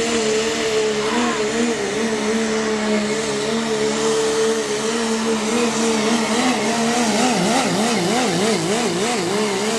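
Diesel 4x4 pulling truck engine running flat out under load on a pull, a loud steady high-revving drone. About seven seconds in its pitch starts wavering up and down two to three times a second before settling again near the end.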